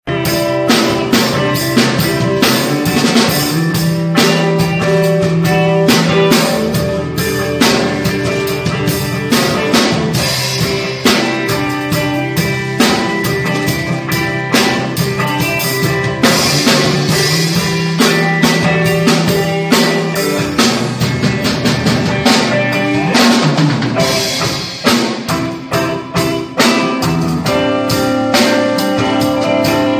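Acoustic drum kit being played in a steady groove: kick drum, snare and cymbals, with held pitched notes from other instruments under the beat.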